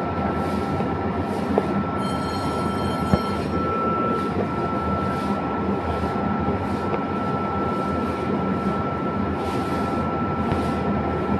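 MEMU train's underfloor air compressor running steadily while building air pressure, a constant machine noise with a steady high whine over a low hum.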